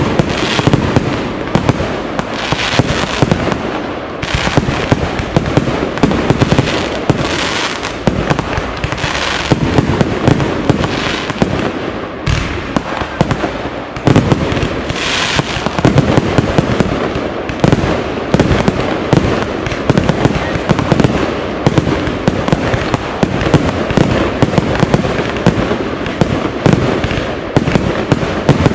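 Aerial fireworks display: a rapid, continuous barrage of shell bursts and crackling, with fresh volleys swelling every second or two.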